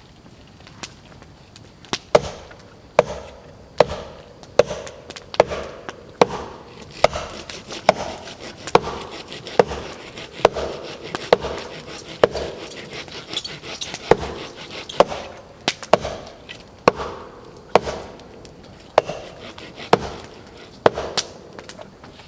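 Wood being chopped at camp: about twenty sharp, evenly paced knocks, a little more than one a second, starting about two seconds in.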